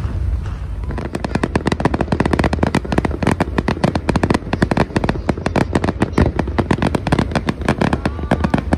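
Fireworks going off: a few single bangs, then from about a second in a dense, rapid crackle of many small sharp bangs in quick succession.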